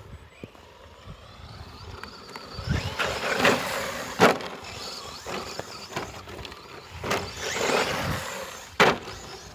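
Stock brushless ECX Torment short course RC truck driving off-road: the electric motor whines as it speeds up in bursts and the tyres churn over rough ground, with two sharp knocks, one about four seconds in and one near the end.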